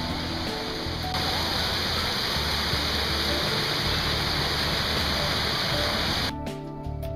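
Small waterfall splashing down onto rocks, a steady rushing of water that gets louder about a second in and cuts off suddenly near the end. Background music plays underneath throughout.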